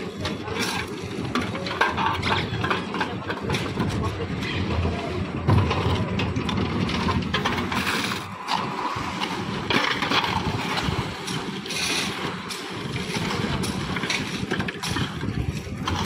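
A concrete mixer machine's engine running steadily, under a jumble of scraping and knocks as wet concrete is shovelled into iron pans and tipped onto the slab.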